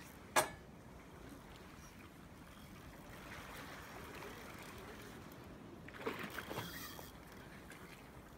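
Sea water lapping faintly below a fishing pier, broken by one sharp knock about half a second in and a short run of clattering knocks around six seconds in.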